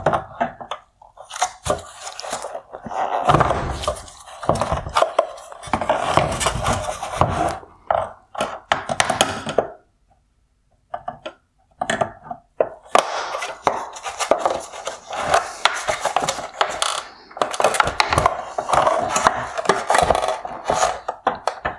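Plastic parts scraping, clicking and knocking as retainer clips are pried off a car headlight's projector mount and the mount is worked loose in its plastic housing. The handling stops briefly about ten seconds in, then carries on.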